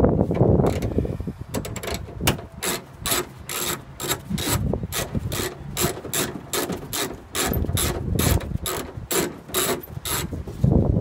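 Socket ratchet with a 10 mm socket on an extension, clicking in quick repeated strokes at about three clicks a second as it backs out a 10 mm bolt inside a truck door.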